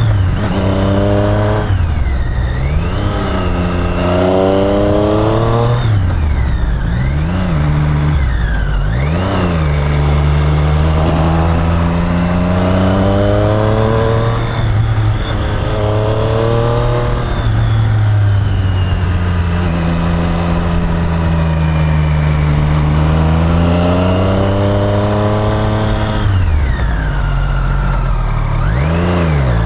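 Triumph Street Triple's three-cylinder engine revving up and dropping back again and again as the bike is ridden and shifted, with quick sharp dips and rises in pitch at several gear changes.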